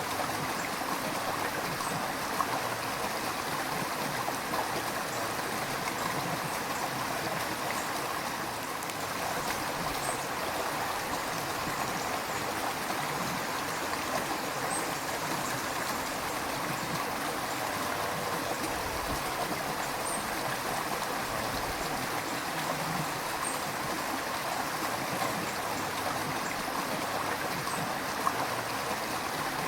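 River water flowing and gurgling over rocks, a steady rushing with small splashes here and there.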